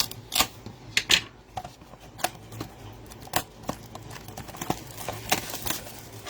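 Card packaging being handled and opened: a quick run of irregular sharp crinkles and clicks from packs and cardboard in the hands.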